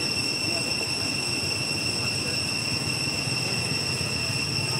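Steady outdoor ambience: a continuous high-pitched whine, unchanging in pitch, over a low rumble.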